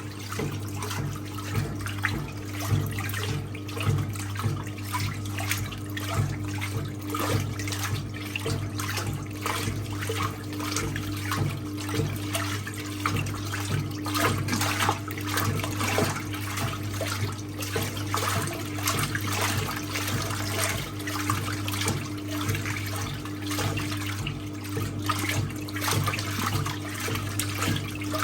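1958 Hotpoint Empress washing machine mid-wash: its electric motor hums steadily while the agitator churns towels in soapy water, sloshing with a fast, even pulse.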